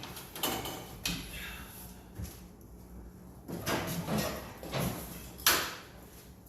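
Irregular scraping and sliding noises from hands-on cleanup work, with a sharp knock about five and a half seconds in, over a low steady hum.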